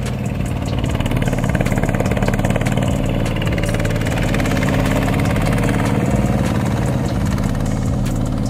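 Boat tractor's 20 hp Chinese diesel engine running steadily while ploughing a paddy field, growing a little louder in the first second.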